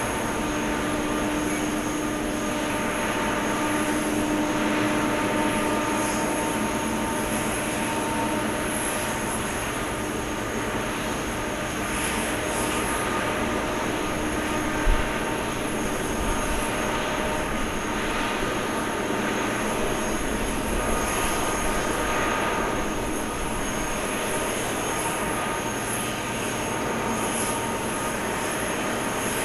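Jet airliner noise on the apron during pushback: a steady rushing hum with high whining tones. There is a single short thump about halfway through.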